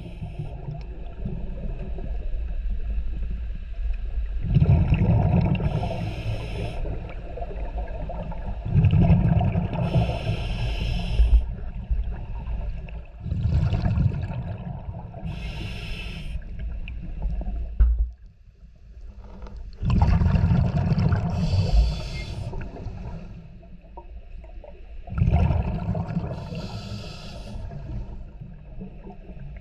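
Scuba diver breathing through a regulator underwater: rumbling bursts of exhaled bubbles alternating with a hiss of air, repeating about every four to five seconds. The breathing pauses briefly about eighteen seconds in.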